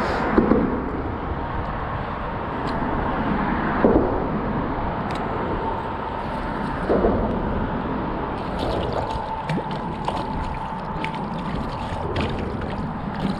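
Water sloshing and trickling around a small boat in the wind, with a faint steady hum and three dull knocks.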